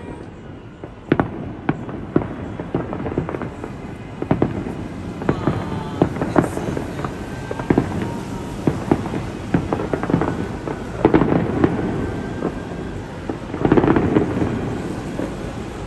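Fireworks display going off: a steady string of bangs and crackles, thickest about eleven and fourteen seconds in.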